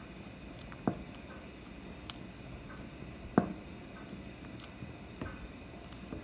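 Vegetable soup with noodles simmering in an enamelled cast-iron Dutch oven and stirred with a wooden spoon: a low wet squishing with four soft pops, the loudest about three and a half seconds in.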